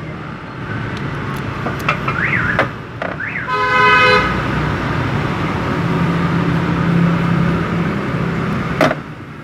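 A vehicle horn toots once, briefly, about three and a half seconds in, over a steady low rumble of road traffic. A few sharp clicks sound before and after it.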